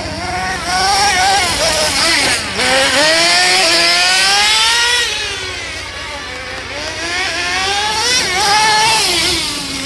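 Kyosho Nitro Tracker RC truck's small nitro glow engine revving as it drives. Its pitch climbs in long sweeps, drops back between them, and peaks three times.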